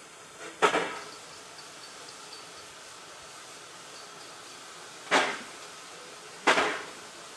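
Vale of Rheidol 2-6-2 narrow-gauge steam tank locomotive giving slow, widely spaced exhaust beats as the double-headed train creeps away. Three sharp chuffs, one about half a second in and two close together near the end, over a steady hiss.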